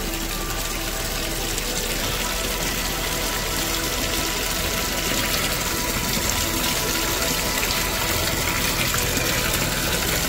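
Water running steadily in a constant rush, with a faint steady hum underneath.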